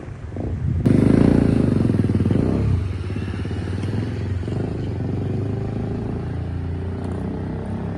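A motor vehicle engine running close by. It comes in abruptly about a second in, is loudest for the next two seconds, then settles to a steadier drone.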